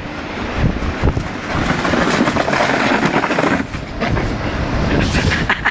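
A snowboard scraping and clattering down snow-covered concrete steps, a steady rough noise that drops away briefly about four seconds in.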